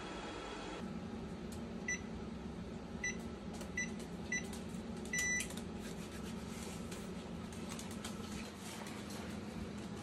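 Electric range's control-panel keypad beeping as its buttons are pressed: four short beeps and then one longer beep, over a steady low hum.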